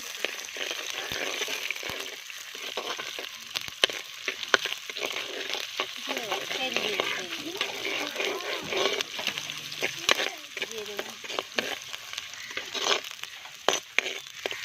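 Whole spices, shallots, garlic, dried red chillies and curry leaves frying and crackling in a pan while they are stirred, with frequent sharp clicks of the spoon against the pan. This is the roasting of the masala that will be ground for the curry.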